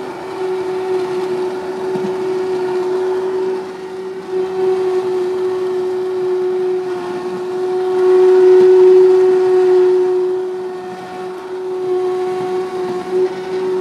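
Breville immersion blender motor running with a steady whine while blending thick sauce in a stainless steel pot. It swells louder for a couple of seconds about eight seconds in, and dips briefly a few times as the blade head is moved.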